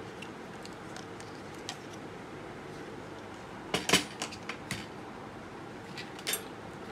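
Clicks and light knocks of small plastic parts, battery clips and a camouflage box, being handled and set down on a glass tabletop: a quick cluster about four seconds in and a couple more near the end, over a steady low hiss.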